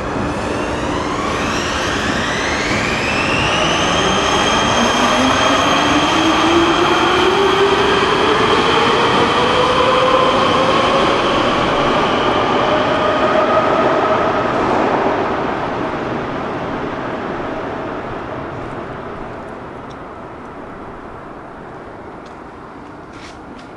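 A Prague metro train pulling out of the station. Its traction motors whine in several tones that rise in pitch together over the first few seconds as it accelerates, then level off and fade away as it leaves, and road traffic noise is left near the end.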